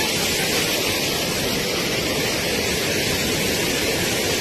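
Steady rush of torrential floodwater.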